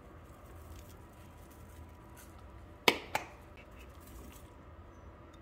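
Two sharp knocks about a quarter of a second apart, about three seconds in, as a small bowl strikes the rim of a mixing bowl while diced tomatoes are tipped in; otherwise only faint room background.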